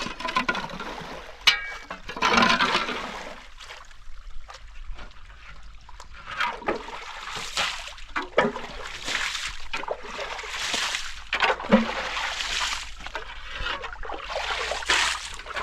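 Water splashing and sloshing in a small spring-fed pool, in irregular swishes, with a couple of sharp knocks.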